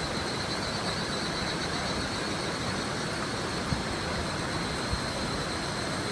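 River water babbling and rushing steadily, with a chorus of higurashi (evening cicadas) giving a continuous high shrill over it.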